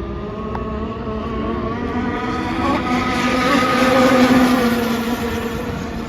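Gas-powered RC speedboat engine running at speed, growing louder to a peak about four seconds in and then fading, as the boat passes.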